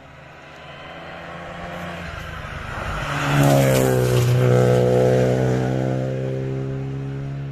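Renault Clio rally car passing close at speed: the engine note builds as it approaches, is loudest about three and a half seconds in, then drops in pitch and fades as the car pulls away up the road under hard acceleration.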